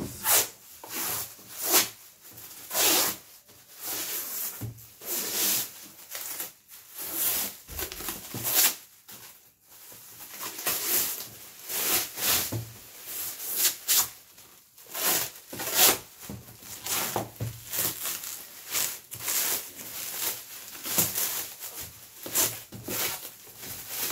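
Clear plastic wrap crinkling and rustling in irregular bursts as it is pulled and peeled off a cardboard box.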